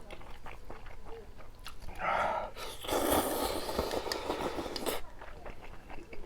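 Close-up sounds of a person eating spicy ramyun: chewing with small crunchy clicks. A short voice-like sound comes about two seconds in, followed by a longer rush of noise from about three to five seconds in.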